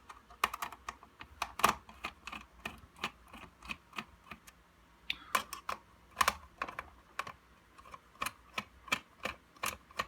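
A Phillips screwdriver turning screws out of a plastic label-printer housing: a string of short, sharp clicks and taps at uneven intervals, a few a second.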